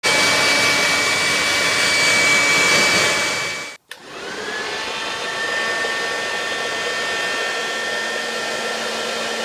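A Lee Stafford Argan Oil 2200 W hair dryer with an AC motor running, a steady rush of air over a high motor whine. It cuts out just before 4 seconds in, then starts again, its whine rising as the motor spins up. It then runs steadily, quieter and lower in pitch than before.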